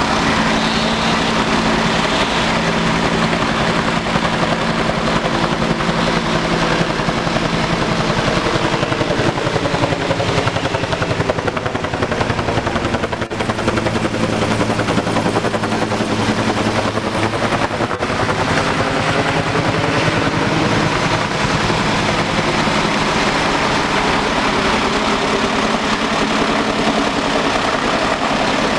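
Bell UH-1 Huey-type helicopter running steadily in flight, its rotor beating rapidly over a constant turbine whine. Around the middle the pitch of the engine tones dips and then rises again.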